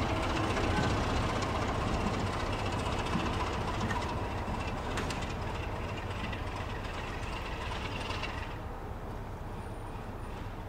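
Class 33 diesel locomotive 33108 coupled to Class 73 electro-diesel 73119, running light and moving away. A steady rumble of engine and wheels slowly fades, with a few sharp clicks from the wheels on the track.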